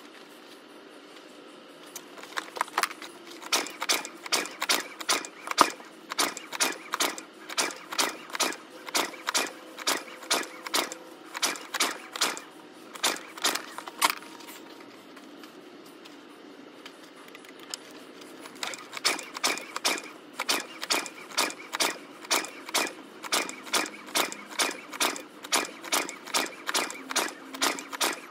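Recoil starter of an SF2600F inverter generator pulled over and over, about two pulls a second, each a short burst of the engine being cranked over without catching. The pulls stop for about four seconds midway, then start again. The engine will not start, and the spark plug is the suspected cause.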